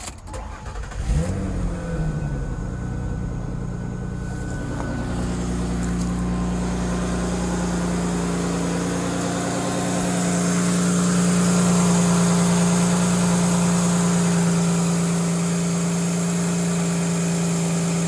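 A 2006 Ford Taurus 3.0L V6 is cranked from ice cold about a second in. It catches with a brief flare in revs, then settles to a steady idle. A hiss grows over the running engine, which the mechanic takes for a vacuum leak.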